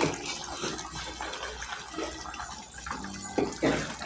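Pot of drumstick and egg curry simmering uncovered, a steady bubbling hiss, with a few short clinks and knocks of utensils against the pan.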